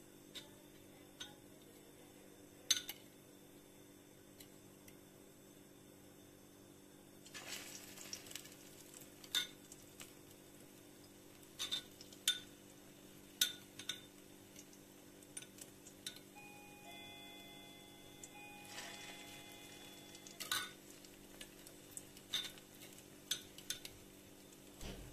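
Metal spoon clinking against a ceramic bowl and a pan as cauliflower florets are coated in beaten egg, with hot oil sizzling when the florets go into the frying pan, about a third of the way in and again near three-quarters through.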